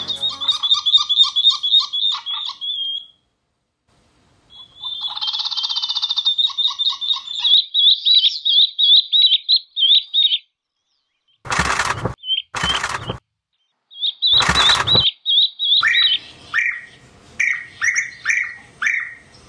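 Wild birds calling: runs of quick, high chirps broken by short pauses, then a string of repeated lower calls at about two a second near the end. Two short bursts of rushing noise cut in around the middle.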